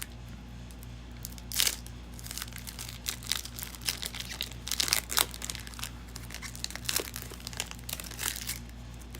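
A foil Pokémon booster pack wrapper crinkling and being torn open by hand, a dense run of irregular crackles starting about a second and a half in. A faint steady low hum runs underneath.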